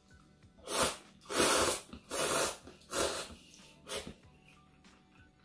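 A person slurping cup ramen noodles off chopsticks: five loud, airy slurps, spread over about three and a half seconds.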